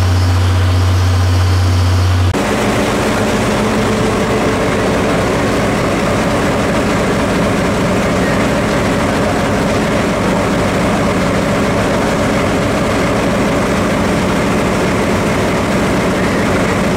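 JNR DE10 diesel-hydraulic locomotive's V12 diesel engine idling with a steady low drone. The tone changes suddenly about two seconds in, from a deep hum to a fuller engine sound.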